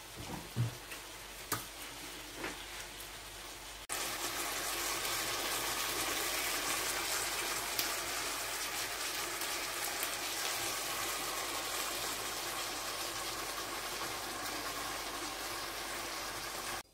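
Seafood pasta in sauce bubbling in a frying pan on the hob. A few light knocks come first. About four seconds in, a louder steady bubbling hiss starts suddenly.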